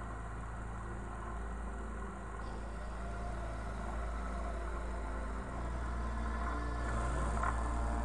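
Ultralight aircraft engine and propeller idling steadily on the ground, getting a little louder near the end.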